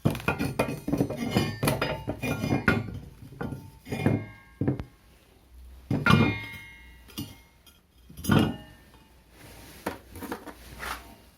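Metal striking metal: a series of sharp knocks with ringing clinks on welded steel pieces, the loudest blows about six and eight and a half seconds in. The weld is being broken open to see how far it fused inside.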